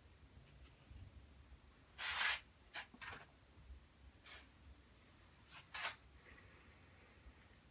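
A paintbrush working watercolour: a few short, faint, scratchy rubbing strokes. The strongest comes about two seconds in, with smaller ones around three, four and six seconds.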